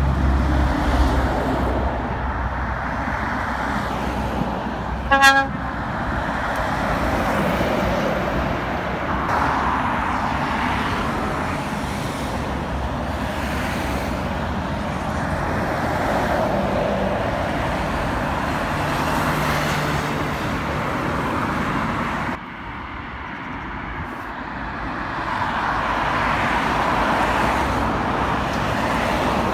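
Road traffic on a dual carriageway: lorries and cars driving past, their tyre and engine noise swelling and fading as each goes by. About five seconds in, a short horn toot sounds. The noise drops suddenly about 22 seconds in, then builds again as more vehicles pass.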